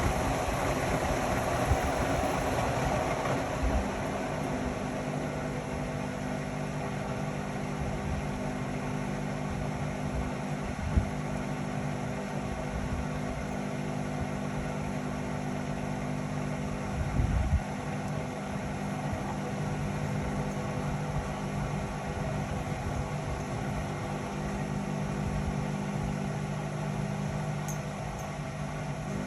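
Indesit Innex XWA 81252 washing machine running mid-cycle, its motor and turning drum giving a steady hum. Two short knocks come from the drum, one partway through and one later.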